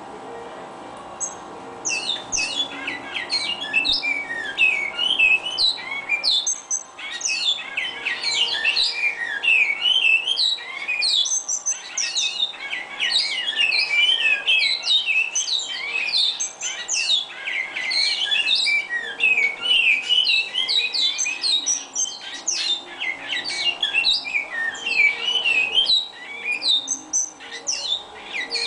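Caged bicudo (great-billed seed finch) singing: a rapid, unbroken run of chirps and quick falling whistled notes that starts about two seconds in.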